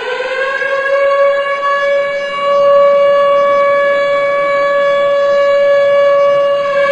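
The one-minute remembrance siren of Turkey's 10 November ceremonies, which signals the moment of silence. It finishes winding up in the first second and then holds one steady, loud wailing pitch.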